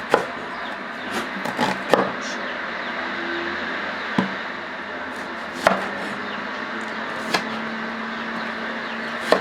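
Knife chopping carrots and onions: about seven sharp, irregularly spaced knocks a second or more apart, over a steady background hiss.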